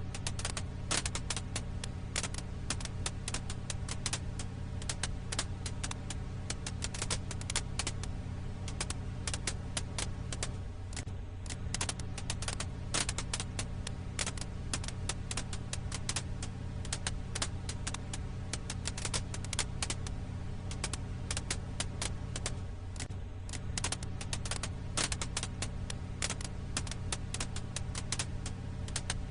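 Crackling firewood in a campfire: dense, irregular pops and snaps over a steady low hum. The low hum breaks briefly about every twelve seconds, like a looped recording.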